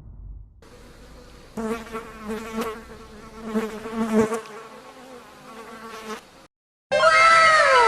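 A buzzing insect sound effect: a low, wavering buzz that swells and fades for about five seconds. After a brief gap near the end, a louder effect starts, several whistle-like tones each gliding downward in pitch, overlapping one another.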